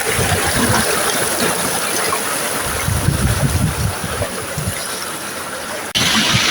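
Flowing stream water rushing steadily, with wind gusts rumbling on the microphone. Near the end it cuts off abruptly and comes back as a louder, hissier rush of water.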